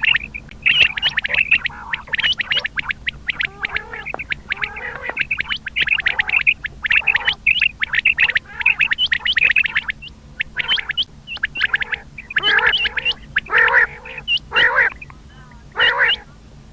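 Common quail calling over and over in short, rapid phrases, several calls overlapping, with lower, harsher calls mixed in that grow louder in the second half.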